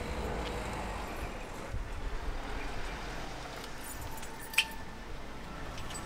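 Street background noise with a low rumble and faint small ticks, and a single sharp click about four and a half seconds in.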